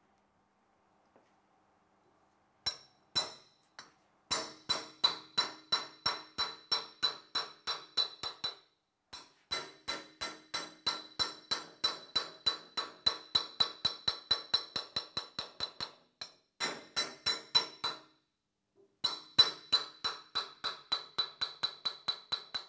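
Copper-faced mallet striking the end of a steel tube over and over, about three strikes a second in runs of several seconds with short pauses, each strike ringing. The tube is driving a rope-type rear main seal into its groove in a Holden V8 engine block.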